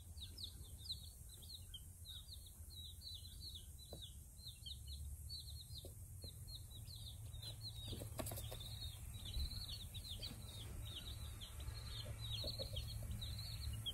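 Day-old chicks peeping: a fast, continuous run of short, high, falling chirps, a little louder toward the end, over a low steady hum.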